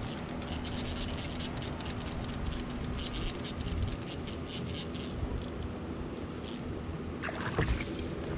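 Fishing reel being wound in while a hooked trout is fought, with fast irregular ticking over water lapping at the kayak, and a louder burst of noise about seven and a half seconds in.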